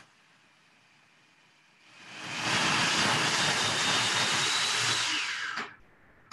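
Electric food processor running, blending a thick pumpkin and almond-butter mixture: it comes in about two seconds in, runs steadily and stops shortly before the end. Heard through a Zoom video call's audio.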